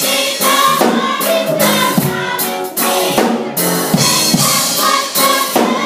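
Young adult gospel choir singing together over a drum kit with bass drum, snare and cymbals.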